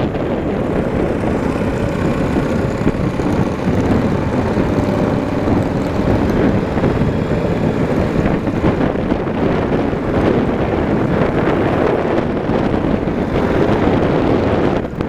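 Motorcycle riding at a steady speed, the engine's drone mixed with heavy wind rush on the microphone.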